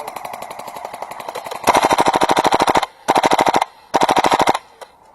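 Airsoft gun firing on full auto: a quieter run of rapid shots, then three loud bursts, the first about a second long and the next two shorter, each cutting off sharply.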